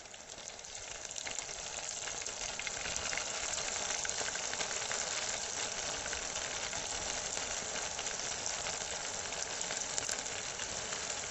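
Marinated fish pieces and curry leaves sizzling and crackling in hot coconut oil in a clay pot. The sizzle builds over the first few seconds, then holds steady.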